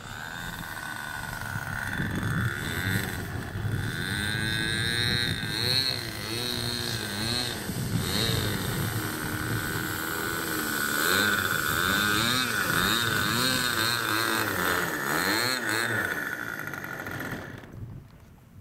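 OS Engines 55AX two-stroke glow engine on a U Can Do model aerobatic plane, running with its pitch rising and falling with throttle changes. It cuts off abruptly near the end.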